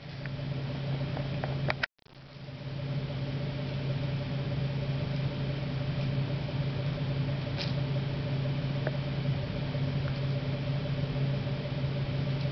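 A steady low mechanical hum, dropping out briefly about two seconds in, with a few faint clicks.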